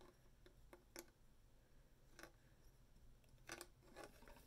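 Near silence with a few faint, scattered clicks of small plastic glitter tubes being handled and knocked together.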